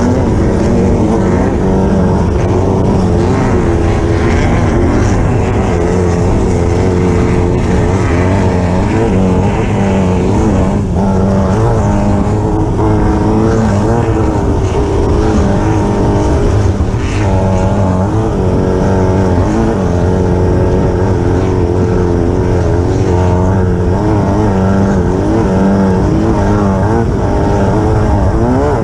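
Class 9 desert race buggy's engine running hard, its pitch rising and falling again and again as the throttle and gears change, with a few brief knocks from the car over rough ground.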